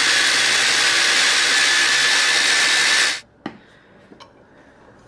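Moulinex electric mini chopper running, its blade puréeing broccoli, cheddar and pasta water into a sauce. The motor cuts off suddenly about three seconds in, and a few light clicks of the plastic bowl being handled follow.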